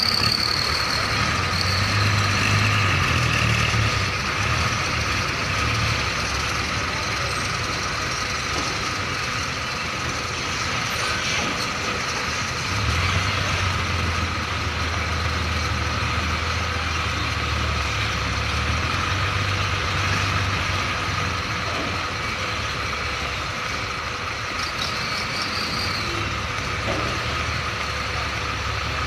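Diesel engine of a Hino tractor-trailer truck hauling a loaded shipping container, running and working under load as it pulls forward and reverses. The engine is louder in two stretches, near the start and around the middle, and a short high squeal comes near the end.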